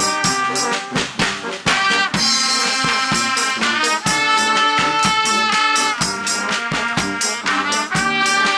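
Live brass band playing, trumpets carrying the tune over drums keeping a steady beat.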